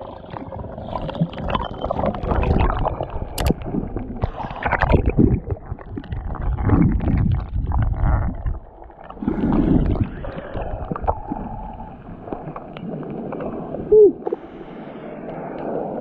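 Bubbles and churning water heard underwater, muffled and irregular, as swimmers plunge in and swim through a stream pool.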